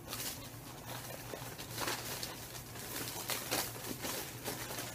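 Rustling and irregular light clicks of objects and packaging being rummaged through and handled.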